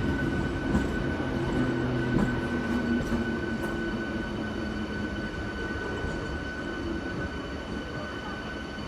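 Train running on the rails, a steady rumble with a low droning hum that fades out about halfway through and a steady high-pitched whine throughout, the whole sound slowly growing quieter.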